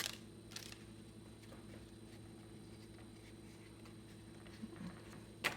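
Trading cards being handled quietly, with a few faint soft clicks, over a low steady electrical hum.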